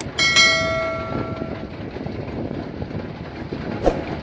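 A click, then a bright bell-like notification ding that rings and fades over about a second and a half, the sound effect of an animated subscribe button. Another click comes near the end. Under it runs the steady machine noise of a Kubota combine harvester.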